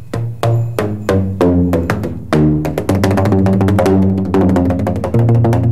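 Tuned tubes of different lengths struck on their open tops with a flat paddle, a quick run of hollow pitched notes at about four strikes a second, the pitch jumping from tube to tube. The longer the tube, the lower the note.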